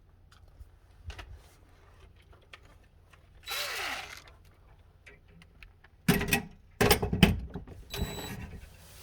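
Light clicks and knocks of hand work on a metal light fixture, then several short loud bursts of a power driver, with a thin whine, from about six seconds in: the screws holding the old fixture to the sheetrock are being driven out.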